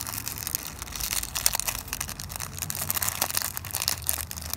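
Small clear plastic packet of gold sequins crinkling as it is squeezed and shaken to pour the sequins out, a dense run of small clicks and rustles.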